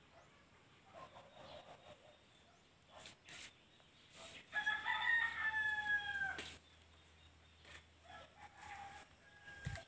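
A rooster crowing once, a long call falling slightly in pitch about four and a half seconds in, with a shorter, fainter call near the end; a few light knocks around it.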